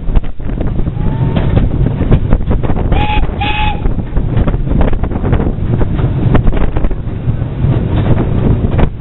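Steam whistle of the LSWR Beattie 2-4-0 well tank 30587 giving two short toots about three seconds in. Underneath is heavy wind noise on the microphone and the rumble of the moving train.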